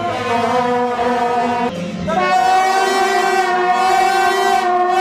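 A group of long straight brass processional horns (Taiwanese shaojiao) blowing steady held blasts together. One long note breaks off under two seconds in, and after a short pause a second, louder long blast follows.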